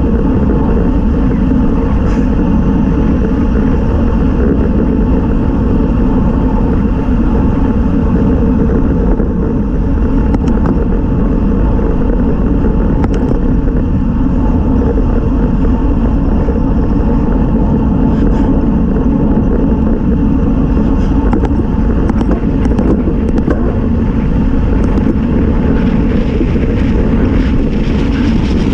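Steady wind rush on a road bike's handlebar camera microphone, mixed with the hum of the tyres on asphalt, at around 24 mph. It grows brighter near the end as the speed picks up toward 28 mph.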